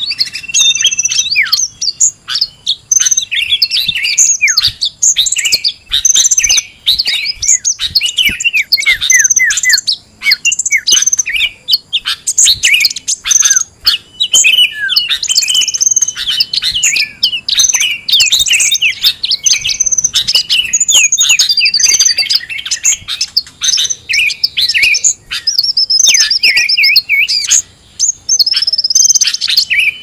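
Bird-lure recording of many small songbirds calling at once: dense, overlapping chirps, trills and short whistles with no real pause.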